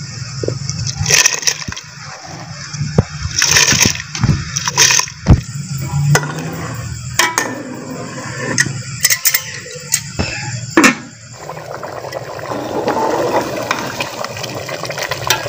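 Rice poured into a pot of boiling water, with repeated clinks and knocks of metal utensils against the pot. From about eleven seconds in the water bubbles steadily.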